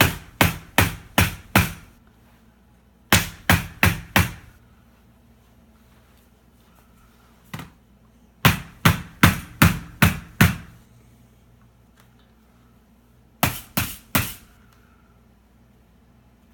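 Rubber mallet knocking a Gamma Seal lid's adapter ring down onto the rim of a plastic bucket, in quick runs of sharp blows about three a second with pauses between: roughly five, then four, a single blow, six, and three near the end.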